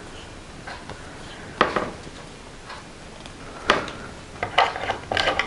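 A few sharp taps and clicks of craft materials being handled and set down on a tabletop: two separate taps, then a quick cluster of clicks near the end.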